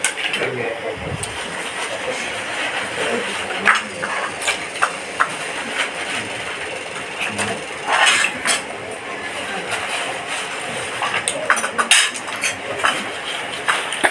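Spoons and ceramic plates clinking now and then as bakso is dished out, over steady background chatter.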